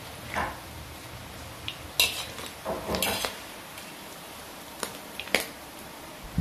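A wire mesh strainer scrapes and clinks against a metal wok while scooping fried beef lung out of hot oil, over a steady sizzle of frying. A sharp clink comes about two seconds in, then a few more scrapes and clinks.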